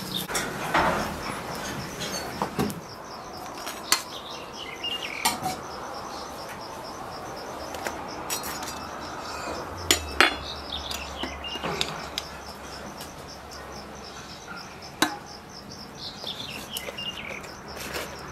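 A metal spatula scraping and clinking against metal cookware, with a few sharp clinks standing out. Behind it runs a steady, fast, high insect trill, with a few short falling chirps now and then.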